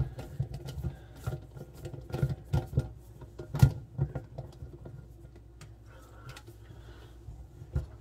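Irregular clicks and taps of a nut driver and fingers on the dishwasher float switch housing as the driver is fitted onto its retaining nuts. The clicks come thick in the first half, with one sharp knock about three and a half seconds in, then thin out.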